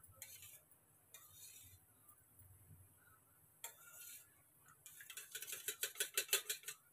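Steel spoon stirring curd and water in a steel bowl, whisking it smooth and free of lumps: soft scraping at first, then a quick run of light clinks against the side of the bowl near the end.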